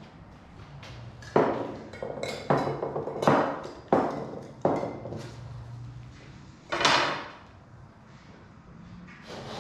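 A large sheet of paper being handled: a run of crisp rustles and crackles, then a longer swishing rustle about seven seconds in. A faint steady low hum runs underneath.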